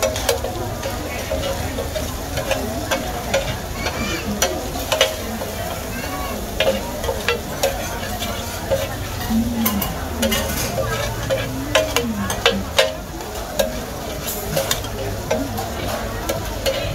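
Two metal spatulas scraping and clacking against a large flat steel griddle in quick irregular strokes, while egg and rice noodles fry with a steady sizzle in oil.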